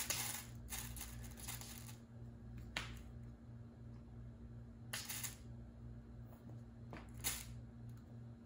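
Faint, scattered rustles and brushing of a fabric streamer toy moving over the wood floor and cat bed, a few short bursts with the longest about five seconds in, over a steady low hum.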